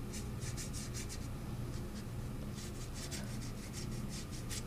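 Round watercolor brush stroking across watercolor paper in short, light horizontal strokes: soft scratchy swishes coming in two runs, one near the start and a longer one in the second half. A steady low hum runs underneath.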